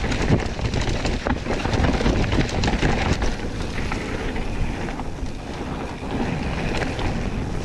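Mountain bike riding fast down a rough trail: wind buffeting the microphone over the rattle and knocks of the bike and tyres on the ground.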